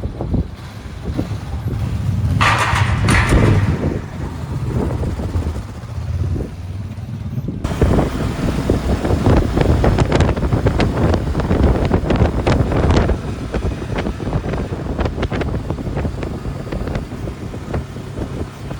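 Enduro motorcycle engine running on the move, with wind buffeting the microphone.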